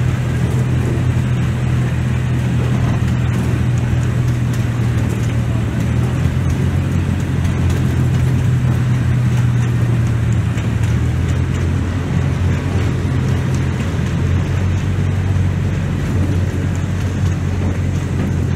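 Steady low rumble of a motor vehicle running, with no break or change.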